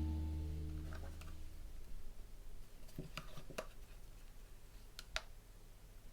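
Background music fading out over the first couple of seconds, then a few small, quiet clicks and taps of hands handling the laptop's parts during reassembly.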